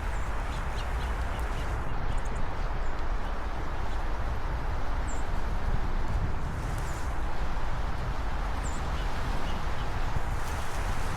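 Steady outdoor wind noise buffeting the microphone, with a few short, faint, high-pitched bird chirps now and then.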